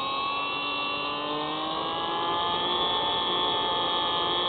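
Hubsan Spy Hawk RC plane's electric motor and propeller whining steadily in flight, picked up close by the plane's onboard camera, with small shifts in pitch as the throttle changes.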